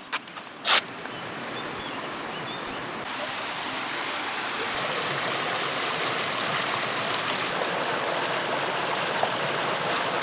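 Steady rushing of running water that fades up over the first few seconds and then holds even, with a few short clicks right at the start.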